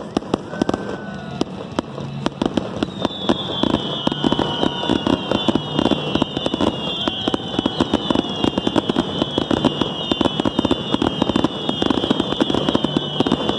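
Fireworks going off in a dense, rapid stream of crackles. From a few seconds in, a high whistle falls in pitch and repeats over and over.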